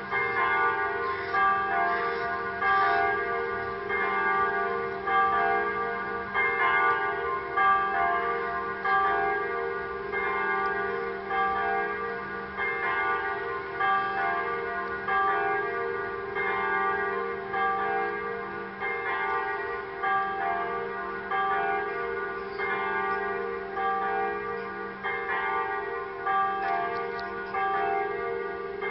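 Electronic church bells: a recorded peal of several bells played over the church's loudspeakers, calling to Mass. The bells strike again and again, overlapping, about once a second, each ringing on into the next.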